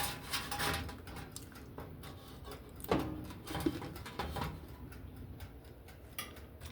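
A person eating crispy sweet potato fries: faint chewing and mouth clicks, with a few short low hums of enjoyment about halfway through.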